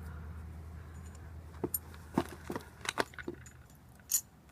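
Sharp metal clinks and taps of pliers on the metal pipe crucible as the crucible of molten lead is handled at the furnace, a string of them in the second half, over a low steady hum that slowly fades.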